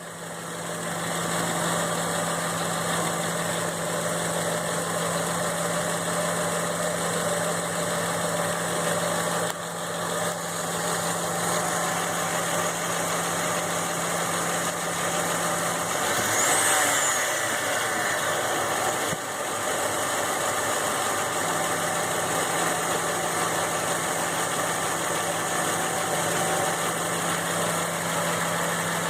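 Ford F-150 engine idling steadily with a ticking noise. The steady low hum drops out for a few seconds just past halfway, with a faint high rising-then-falling tone.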